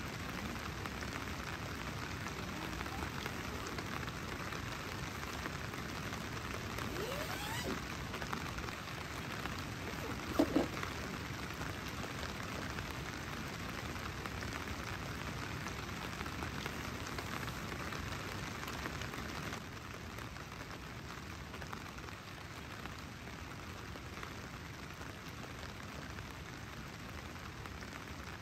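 Steady rain pattering on a tent and tarp. About ten seconds in there is a short double sound with a pitch to it, louder than the rain, and the rain drops slightly in level about two-thirds of the way through.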